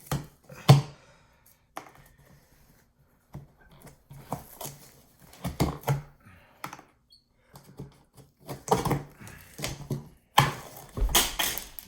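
A cardboard shipping box being opened by hand: irregular clicks, scrapes and rustles of cardboard and packing, in short bursts with brief pauses.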